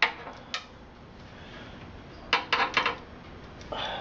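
Small metallic clicks and clinks of a screwdriver and screws as motherboard screws are taken out of a metal PC case. There are single clicks at the start and about half a second in, then a quick run of four clinks a little after two seconds, and more near the end.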